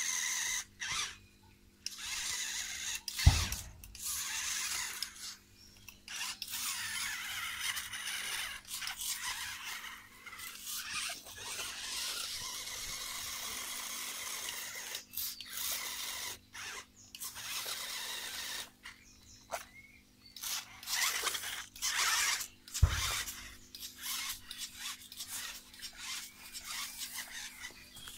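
A small RC crawler truck's electric motor and gears whine in stop-start spurts as it is throttled over a dirt mound. Two low thumps come about three seconds in and again near the end, the first the loudest.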